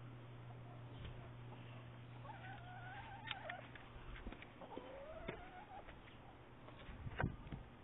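A hen giving two long, wavering calls, the second rising toward its end, with a sharp knock during the first call and a louder knock near the end.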